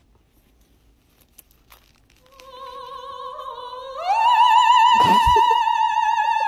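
Operatic singing: a single sustained note with wide vibrato that swells in and then climbs to a higher, louder held note about four seconds in, after a couple of seconds of near silence.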